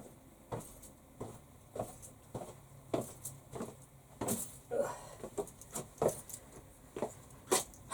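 Footsteps, a short knock about every 0.6 s, with a brief rattle a little past halfway.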